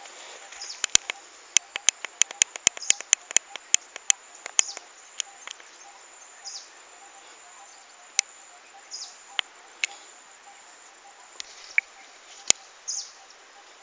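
Forest sounds of scattered bird chirps over a faint steady insect drone. About a second in comes a quick run of sharp clicks, about three a second, lasting a few seconds and louder than the rest.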